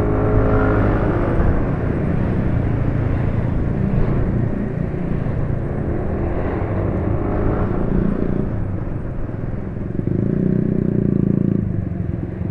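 Motorcycle riding in town traffic: its engine running under heavy wind and road rumble, with the engine note rising and falling in the first second and again around six seconds, and a steadier pitched drone from about ten seconds to near the end.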